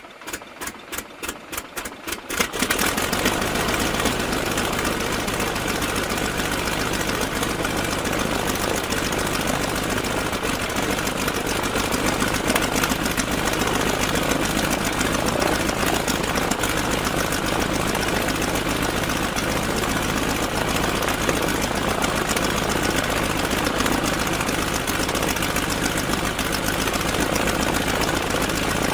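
Stearman biplane's radial engine being cranked over, with about four even strokes a second, catching about two and a half seconds in, then running steadily at idle.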